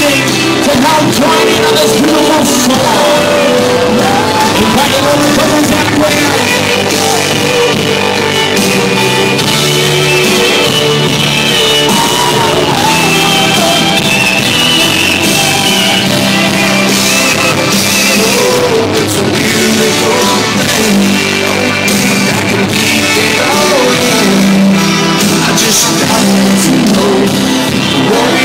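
A loud recorded song with a singer, playing steadily over a bass line.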